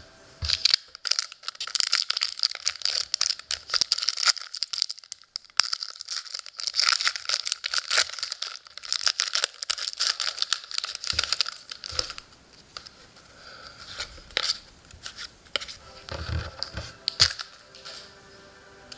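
A hockey-card pack's foil wrapper being torn open and crinkled in the hands, a dense crackling that lasts about the first ten seconds. After that come quieter rustles of cards being handled, with a few soft knocks.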